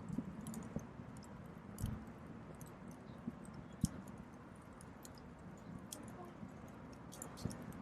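Wood fire crackling, with scattered irregular sharp pops and a couple of dull low knocks about two and four seconds in.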